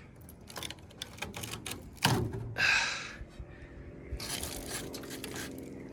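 Sheet steel being handled as a cut-out section of rusted roof skin is pulled away: irregular clicks, taps and short scrapes, with one longer, louder scrape about halfway through.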